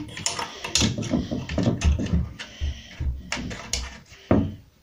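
Chrome lever door handle on a newly fitted door being pressed down and let go repeatedly, its latch and spring clicking and knocking, with a little play in the handle. A sharp knock comes near the end.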